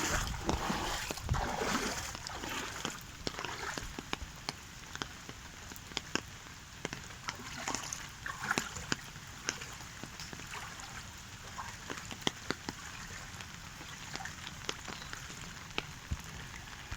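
Rain falling on a hard surface: a steady hiss with many separate drops striking at irregular moments, somewhat louder in the first two or three seconds.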